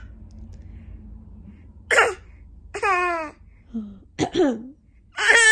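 A young child's playful imitation sneezes and coughs: about five short, high-pitched vocal bursts, each falling in pitch. They start about two seconds in, and the last one near the end is the loudest.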